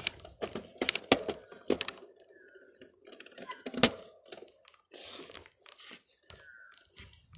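Bicycle jolting over a bumpy grass track: irregular sharp knocks and rattles, loudest right at the start and about four seconds in.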